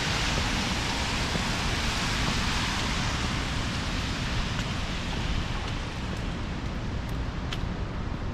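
Steady hiss of a rainy city street: wet-road traffic noise and rain, easing slightly, with a few faint ticks near the end.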